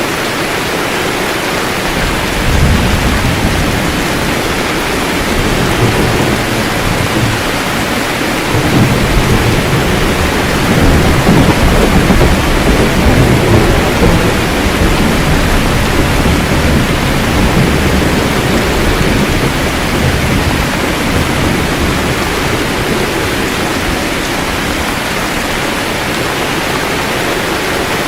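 Steady heavy rain with low rolling thunder, which swells a few seconds in and again, loudest, from about ten to fifteen seconds in, then dies back to the rain.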